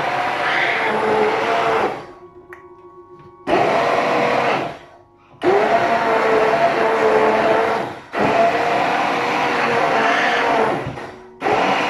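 Electric stick blender pureeing tomatoes with thyme, garlic, salt and onion in a plastic measuring jug into pizza sauce. The motor runs at a steady pitch in bursts of one to three seconds, switched off and on again about four times with short pauses.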